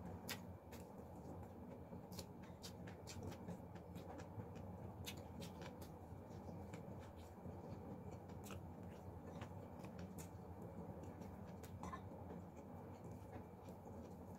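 Crispy fried food being chewed and picked apart by hand: the burnt fried chicken and fried amaranth leaves. Scattered sharp crackles and crunches come at an irregular rate over a low steady background hum.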